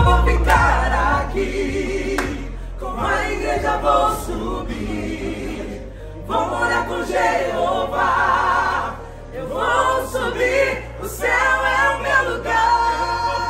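A small mixed group of men and women singing a gospel song together, several voices at once in phrases with short breaks between them.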